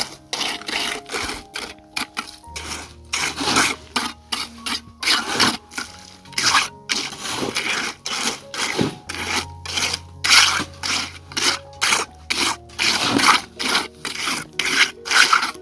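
Repeated scraping strokes of a hand tool rubbing back and forth on a rough, hard surface, several strokes a second at a slightly uneven pace.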